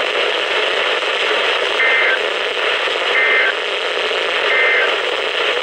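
NOAA Weather Radio receiver hissing with static, broken by three short bursts of two-tone digital data about a second and a half apart. These are the SAME end-of-message code that closes a weather alert.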